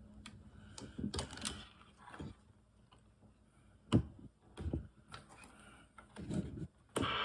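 Scattered clicks and knocks of a handheld CB radio being handled and switched, the loudest about four seconds in; near the end a steady static hiss suddenly comes on through the radio's newly fitted speaker, showing the replacement speaker works.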